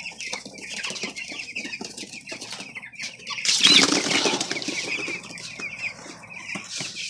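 A flock of two-week-old broiler chicks peeping continuously, with scratching and scuffling on cardboard bedding. A louder burst of rustling comes about three and a half seconds in.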